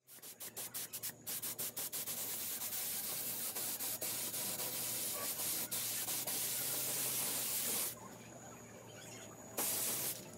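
Clear coat being sprayed onto a car wheel rim: a paint spray hiss in short spurts at first, then steady. It drops off about eight seconds in and comes back briefly near the end.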